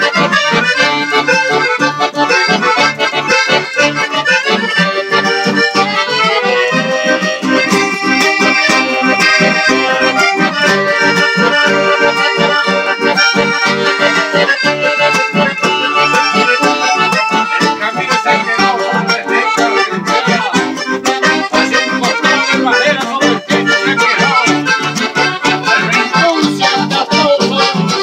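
Two piano accordions, one a red Hohner, playing a tune together: sustained chords and melody over a steady rhythmic pulse.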